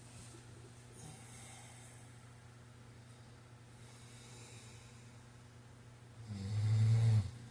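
A sleeping man snoring: faint breaths at first, then, about six seconds in, one loud snore with a low buzz lasting about a second.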